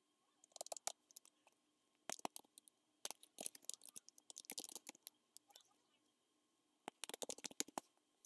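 Computer keyboard keys clicking in quick bursts of typing, with short pauses between the bursts.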